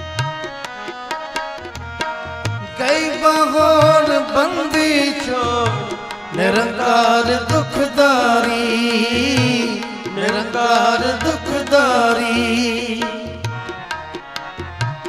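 Sikh shabad kirtan music: tabla keeps a steady beat under held harmonium notes. In the middle, a voice sings three long drawn-out phrases without clear words, then the drum and harmonium carry on alone near the end.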